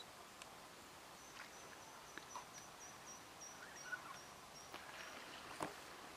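Quiet lakeside ambience: a faint, high, thin chirping that pulses about three times a second for a few seconds, with scattered soft chirps and clicks and a sharper click near the end.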